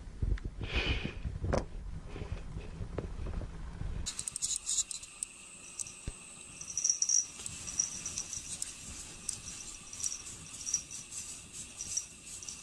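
A cat clawing and digging at a wall of packed snow: rapid scratchy, crunching clicks with faint high-pitched chirping tones. Before that, about four seconds of low rumbling noise.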